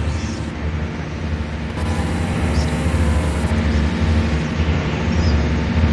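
Noise-music drone: a dense, steady rumble with a strong low hum, several held tones and a hiss on top.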